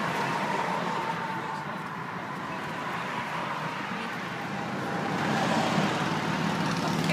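Road traffic: cars driving past on a busy street, a steady rush of tyres and engines that swells again near the end as a vehicle passes close by.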